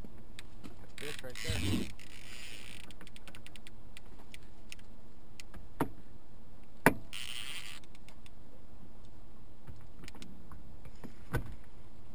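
Fishing reel drag clicking and buzzing in short runs as a hooked salmon pulls line off, with a few sharp knocks, the loudest about seven seconds in.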